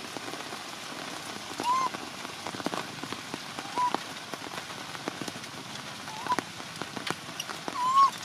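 Baby macaque crying in short, high, arching calls, four times, frightened by the heavy rain. Steady rain hisses throughout, with sharp drip taps close by.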